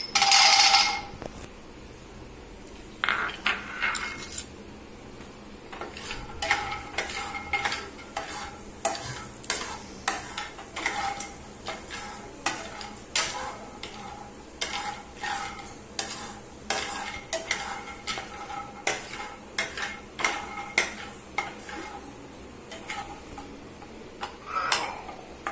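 Almonds tipped into a dry nonstick frying pan with a clatter, then stirred with a wooden spatula to dry-roast them: the spatula and nuts scrape and rattle against the pan in short repeated strokes, about one and a half a second.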